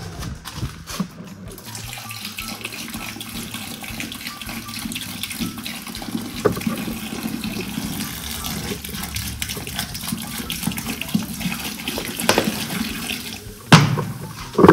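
Carbonated cola fizzing and running out of a large freshly opened bottle: a steady rushing, hissing flow of liquid. A sharp knock comes near the end.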